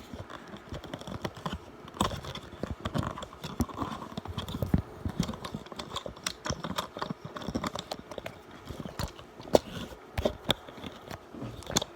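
Handling noise: irregular clicks and taps as a phone is fitted into the clamp of a handheld phone stabilizer rig.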